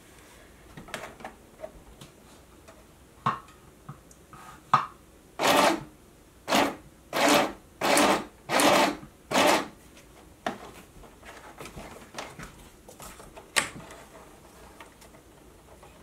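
Stitch Happy sewing machine running in six short bursts of about half a second each, roughly a second apart, during a test stitch. Light clicks of handling the machine and material come before and after.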